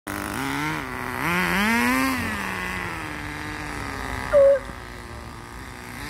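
Radio-controlled buggy's small engine revving up and down, then running on steadily. A brief, loud high tone sounds about four and a half seconds in.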